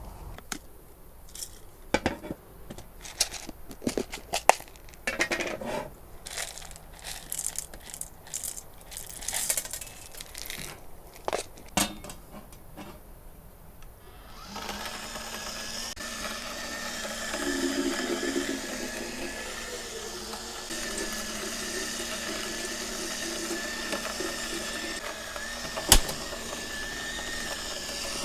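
Clicks and knocks of handling things, then about halfway through a small electric motor starts and runs steadily with a low hum and a higher whine, with one sharp knock near the end.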